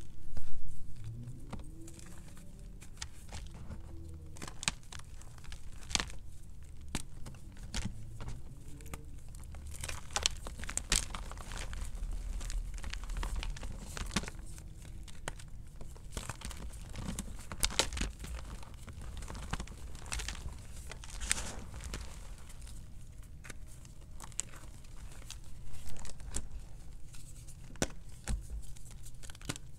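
Hard molded gym chalk being crushed and crumbled by hand, with irregular crunching snaps of breaking chalk and the rustle of powder and chunks. The chalk is very crunchy, with the loudest crunch about half a second in.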